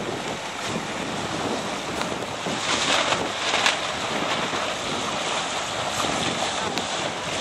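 Wind buffeting the microphone over the rush and slap of choppy water, heard from aboard a boat; a steady noise that swells a little about three seconds in.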